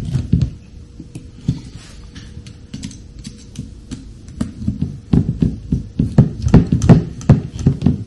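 Soft knocks and taps of hand work on an RC helicopter's carbon-fibre frame as a hex screwdriver tightens its frame bolts, scattered at first and coming thick and fast in the second half, with a faint steady hum underneath.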